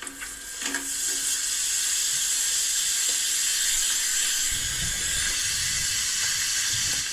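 Steady fizzing hiss of carbonated cola being poured, with a low rumble joining about halfway through.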